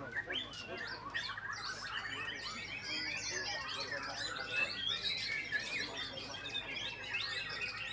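White-rumped shama (murai batu) singing a continuous, rapid, high-pitched song of varied whistles and chattering notes, with other caged songbirds singing at the same time.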